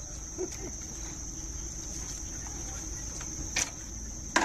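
Insects buzzing in a steady, high-pitched chorus, with two sharp clicks near the end.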